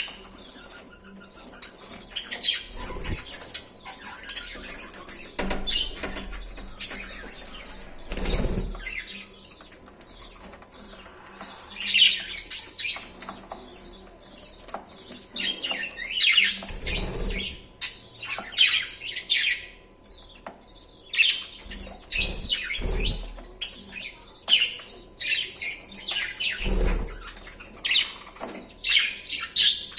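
Pet budgerigars chirping in many short high chirps, busier in the second half, with wing flapping and a few low thumps.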